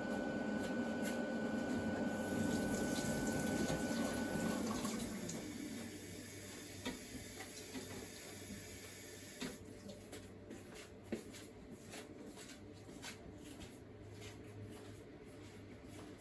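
AQUA refrigerator's machinery running with a steady hum and a thin whine, which winds down and stops about five seconds in, leaving a faint hum and scattered light ticks.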